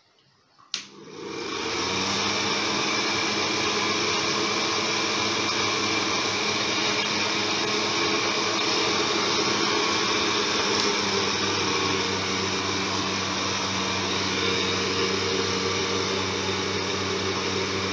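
NG NAC-9800 room air cooler switched on with a click, its fan motor spinning up within about a second and then running steadily with a hum and a rush of air. The motor runs noisily, which the owner puts down to the motor being dry inside, not sure whether it is a bearing problem.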